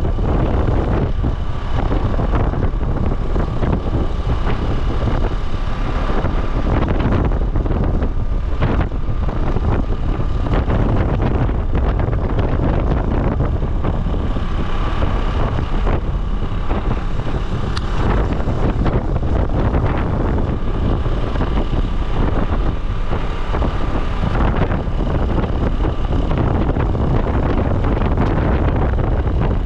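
Wind rushing over the microphone of a moving motor scooter, with the scooter's engine running steadily underneath and a faint whine that comes and goes.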